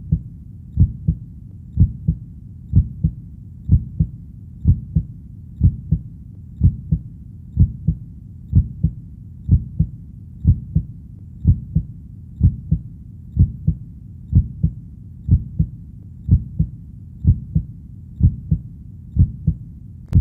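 Human heartbeat sound: a steady double thump (lub-dub) repeating about once a second, with low background noise between the beats.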